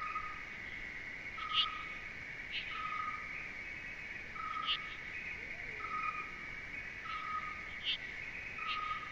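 Nature ambience: a steady high insect chorus, a short whistled call repeating about every one and a half seconds, and brief sharp high chirps now and then.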